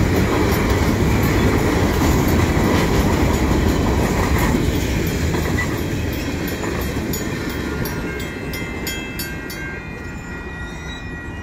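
CN mixed freight train's tank cars rolling past close up: a heavy rumble of steel wheels on rail with rapid clicking over the rail joints. The rumble fades from about halfway as the last cars pass and move away, and a thin steady high tone comes in near the end.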